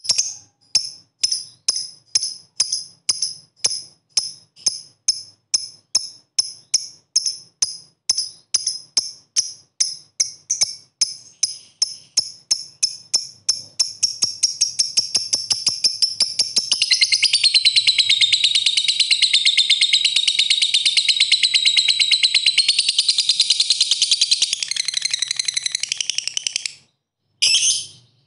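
Fischer's lovebird calling: sharp high chirps about twice a second that gradually speed up, then run together about halfway through into a long continuous rapid chatter, the lovebird's 'ngekek' song, which stops abruptly near the end.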